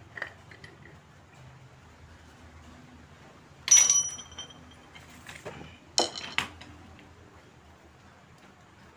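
Metal tools or engine parts clinking together: a sharp ringing clink a little under four seconds in, then a second clink with a smaller follow-up about six seconds in, and a few faint small clicks near the start.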